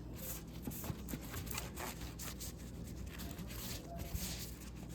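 Cloth wiping and rubbing on a plastic MacBook case to polish it: a string of short, irregular scratchy strokes over a low steady hum.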